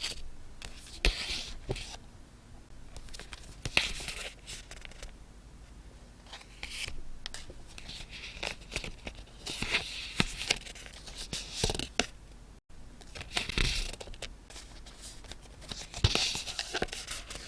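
Paper being handled close to the microphone: a series of short tearing and rustling bursts with sharp clicks between them.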